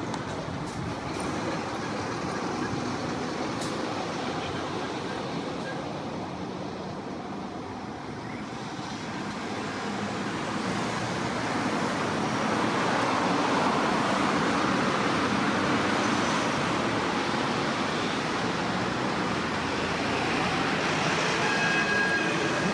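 Steady noise of passing vehicles that grows louder about halfway through, with a brief high tone near the end.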